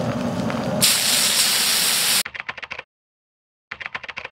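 Food hitting a hot wok and sizzling with a loud hiss from about a second in. The sound cuts off suddenly around two seconds in. After that come short bursts of rapid keyboard-typing clicks, a text sound effect.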